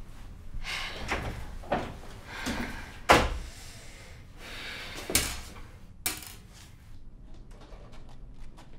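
A dressing-room door shutting with a thud about three seconds in, among a handful of softer knocks and clunks.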